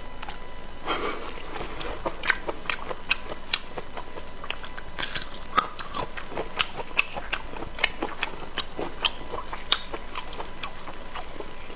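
Close-miked chewing of pig large intestine: many short mouth clicks and smacks at an irregular pace, roughly one to three a second.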